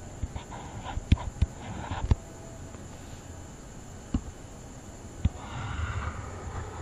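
A few sharp computer-mouse clicks, spaced irregularly, as numbers are drawn on screen, with soft breathing close to the microphone over a faint steady hiss.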